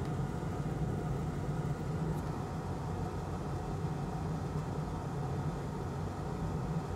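Steady low machine hum with a faint even hiss, unchanging throughout.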